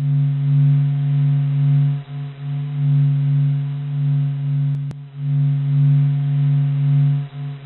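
The so-called sound of the Sun from NASA, a sonification of solar vibration data: a low, steady hum with a few fainter overtones above it, swelling and dipping every second or so.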